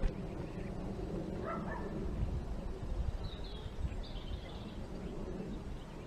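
Faint outdoor ambience with a steady low rumble of wind on the microphone, a short knock right at the start, and a few faint distant animal calls, one about a second and a half in and higher ones around three to four seconds in.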